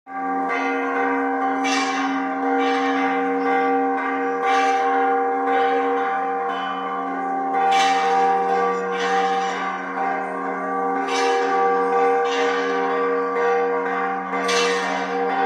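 Church bells ringing, struck about once a second, each new strike sounding over the long overlapping ring of the earlier ones.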